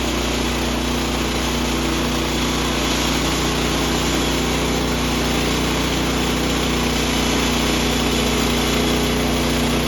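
Gas engine of an HM126 portable bandsaw sawmill running at a steady speed.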